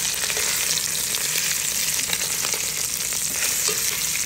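Chicken thighs searing in hot oil in a pot, sizzling steadily, with faint clicks of metal tongs as the pieces are turned.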